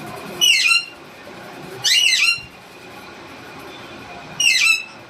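Parrot squawking three times, each call a harsh, brief screech about half a second long, the second a little longer.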